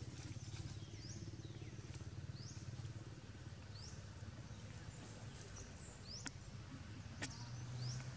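Outdoor forest ambience: a bird gives short, high, rising chirps about every second or so over a steady low hum. Two sharp clicks come near the end.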